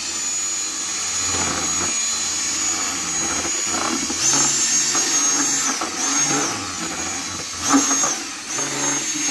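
Electric drill spinning a mixing paddle through a bucket of epoxy resin, a steady motor whine whose pitch shifts a few times as the speed changes.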